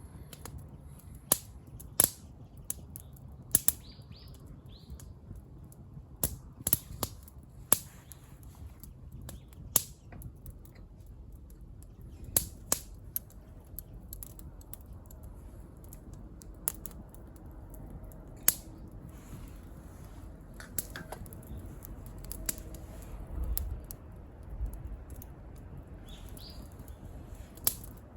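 Wood campfire crackling, with sharp pops at irregular intervals over a low steady rustle.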